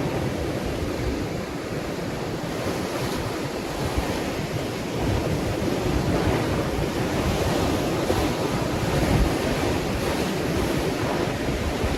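Ocean surf: waves washing in as a continuous rush that swells louder about five seconds in, with wind buffeting the microphone.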